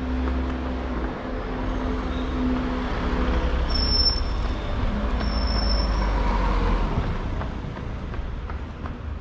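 A motor vehicle's engine running close by in a narrow street, a low rumble that fades about seven seconds in, with a few brief high squeaks over it.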